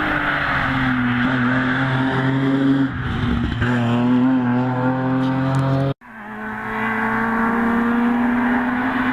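Hill-climb race car engine running hard at high revs, with a short break in the note about three seconds in. The sound cuts off abruptly about six seconds in and another engine note takes over, holding steady and then falling away near the end.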